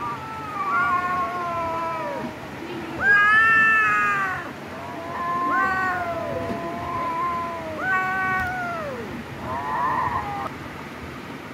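Kittens mewing: a string of long, high meows that mostly slide down in pitch, sometimes two at once, ending with a short wavering one about ten seconds in.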